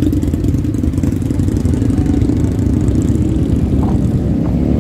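Motorcycle engine running at low speed, heard from the rider's own bike, a steady pulsing rumble as it rolls through slow traffic.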